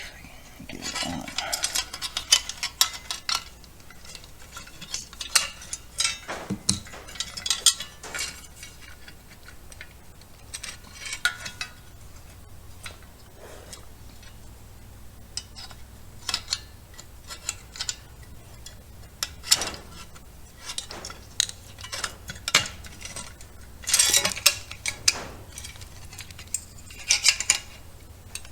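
Irregular clicks, clinks and light knocks of small hard parts being handled as a fuel pump is fitted onto its fuel tank hanger, with a low steady hum underneath.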